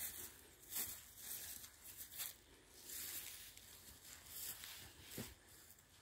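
Soft, irregular rustling and crackling, a few short bursts a second, from footsteps brushing through grass along the stream bank.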